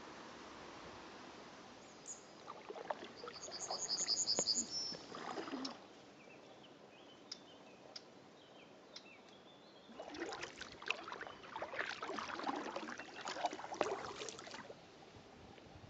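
Kayak paddles dipping and splashing in calm river water, in a short spell of strokes and then a longer one from about ten seconds in. A quick run of high chirps sounds about four seconds in.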